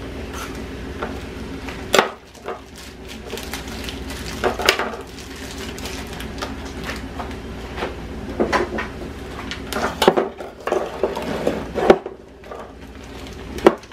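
Kitchen handling noise: a small knife cutting a slice off a block of cheese on a countertop, and the knife and a metal box grater being set down, making scattered knocks and clinks. A low steady hum runs underneath.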